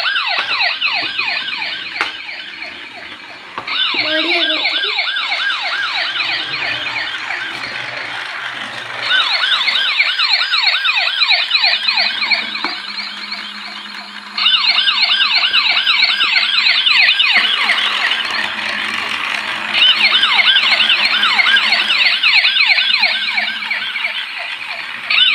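Battery-powered toy police car's electronic siren sounding, a fast up-and-down wail repeating several times a second. It steps louder every few seconds.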